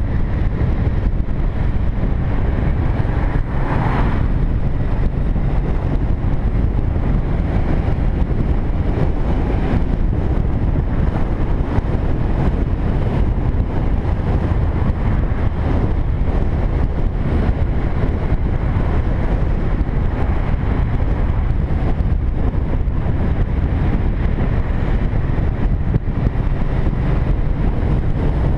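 Steady rush of wind buffeting the microphone on a motorcycle riding at road speed, over engine and road noise. A brief higher-pitched swell about four seconds in.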